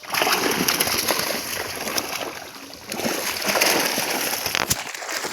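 Water splashing and sloshing in irregular bursts, easing briefly midway, with one sharp click near the end.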